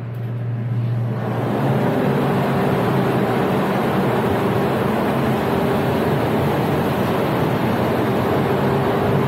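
Steady drone of a ship's engine-room machinery, a low hum with a higher steady tone over a dense mechanical noise, growing louder over the first second or two and then holding.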